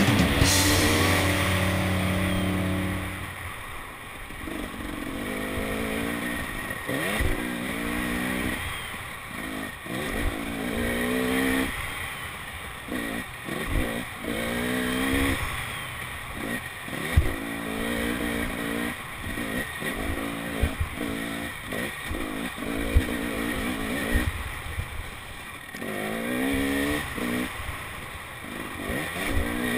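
KTM 300 XC-W two-stroke single-cylinder dirt bike engine revving up and falling off over and over as it is ridden along a bumpy trail, with short knocks mixed in. Background music plays for about the first three seconds, then stops.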